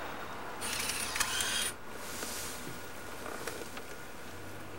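VHS camcorder mechanism noise: a burst of hiss and clicks about a second long that stops abruptly, followed by steady background hiss.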